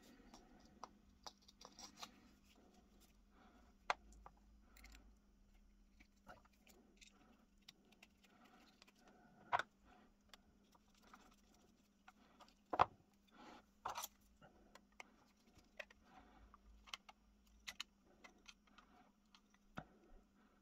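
Faint, scattered clicks and small metallic clinks of an antique percussion pocket pistol's metal parts being handled and fitted back together, with a few sharper clicks among them and a screwdriver working a grip screw near the end.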